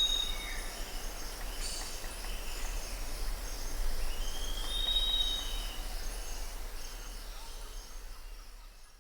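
Outdoor nature ambience: a steady hiss with a long high whistled note that rises slightly, heard twice about four seconds apart, and faint high chirps. It fades out near the end.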